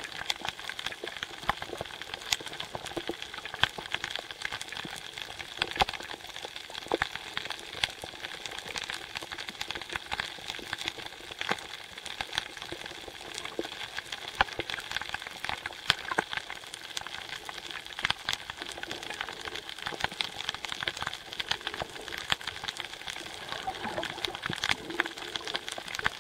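Underwater coral-reef crackle: a dense, steady run of many small irregular clicks, typical of snapping shrimp.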